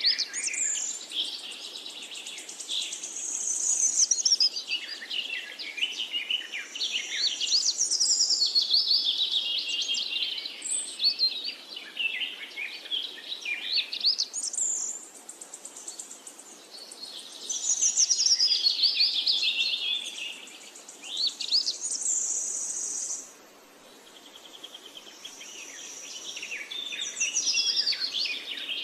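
A chorus of many birds chirping and calling at once: overlapping high twitters, trills and rising and falling whistles, thinning out briefly about two-thirds of the way through before picking up again.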